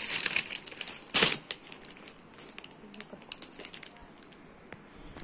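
Clear plastic saree packaging crinkling as it is handled: dense crinkling at first, a sharper crackle about a second in, then scattered faint crinkles and clicks.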